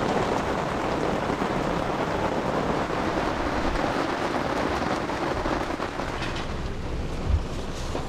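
Steady rain pouring down, with one short low thump about seven seconds in.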